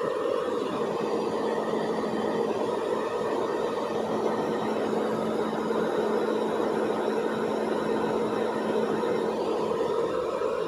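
Hair dryer running steadily: an even rush of blown air over a low motor hum.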